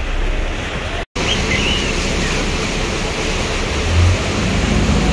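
Steady rushing wind and water noise on a moving harbour ferry, cutting out for an instant about a second in, with a brief low hum about four seconds in.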